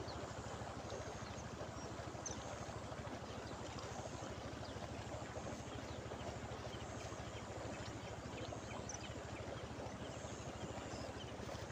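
Steady rush of river water pouring over a small rapid along a muddy bank, with faint high chirps scattered above it.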